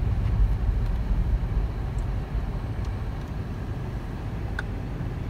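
Steady low rumble of a car driving slowly, heard from inside the cabin, with a couple of faint clicks.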